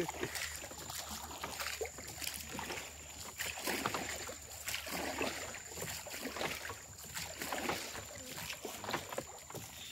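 Water splashing and lapping around a rowboat moving along a calm channel, in irregular small splashes, with no engine.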